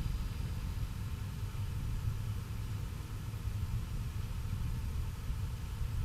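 Wind buffeting the microphone: low, uneven noise with a faint hiss above it.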